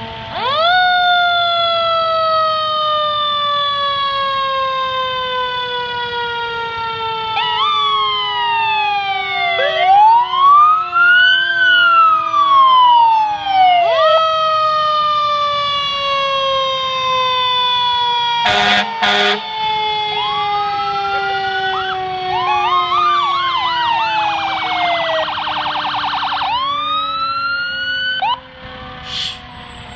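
Fire engine sirens sounding as several trucks pass, overlapping: each quickly winds up in pitch and then falls slowly over several seconds. Two short, loud air-horn blasts come a little past the middle, and a fast warbling yelp comes near the end.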